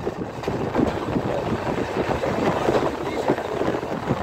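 Running noise of a moving passenger train heard from an open coach doorway: a steady rumble with irregular rattling and clatter, and wind on the microphone.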